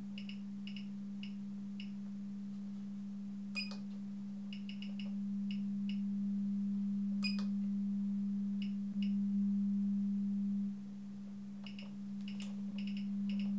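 Steady 200 Hz sine-wave test tone from an audio oscillator, heard through the mixing console while the oscillator's amplitude is raised and the console's input gain is turned down. Its loudness steps up about five seconds in, drops back near eleven seconds and rises again near the end, with a few faint clicks over it.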